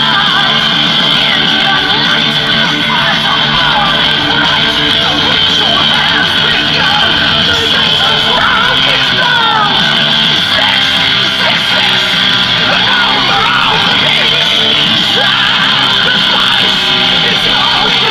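Loud rock music with guitar and yelled vocals, dense and even in loudness.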